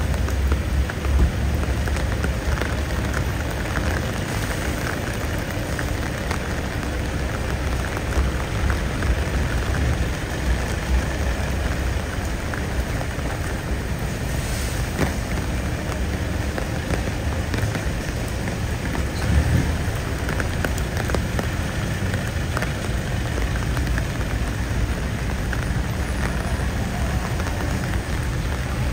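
Steady rain falling, a continuous hiss, with a low rumble underneath.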